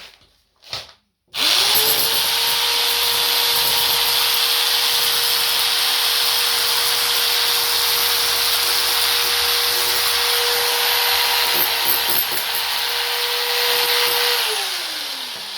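Vacuum cleaner switched on, its motor spinning up to a steady whine with a strong rush of air. It runs evenly for about thirteen seconds, then is switched off and winds down near the end.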